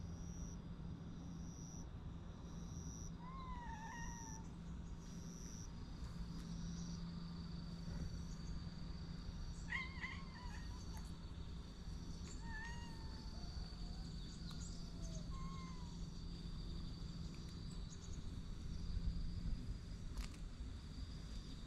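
Cats meowing: about six short, wavering meows, one about four seconds in and a scattered run of them from about ten to sixteen seconds in.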